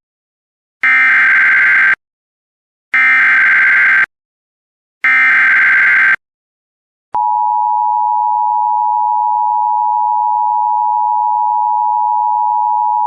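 Emergency Alert System SAME data header: three harsh, warbling digital bursts of about a second each, roughly two seconds apart, marking the start of a new alert. About seven seconds in, the steady two-tone EAS attention signal begins and holds.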